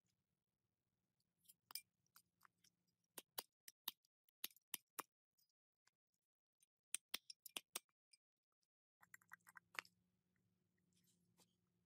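A run of sharp metal clicks and clinks as pliers and loose parts knock against a small two-stroke engine's crankcase half during its strip-down, followed by a few quicker clicks near the end.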